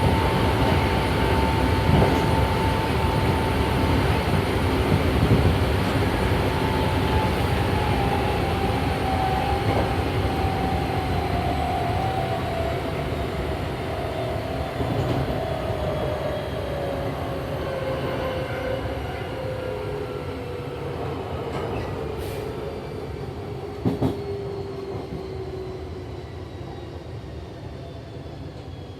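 Hankyu 7300 series electric train motor car, with field-chopper control and Toyo compound-wound traction motors, running on the line: constant wheel and motor noise. A motor tone holds steady, then falls in pitch over about twenty seconds as the train slows and the noise eases. A short sharp knock comes about 24 seconds in.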